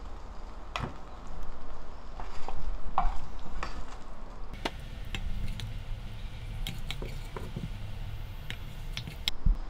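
A spatula moving braised potato slices into a ceramic bowl: scattered light clicks, taps and soft scrapes against the bowl, with a few wet, squishy sounds of the glazed slices.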